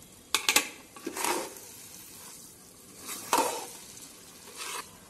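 Flat metal spatula stirring and scraping thick, ghee-rich broken-wheat lapsi around a metal pan: about four scraping strokes with sharp clinks against the pan, and the ghee frying quietly in between.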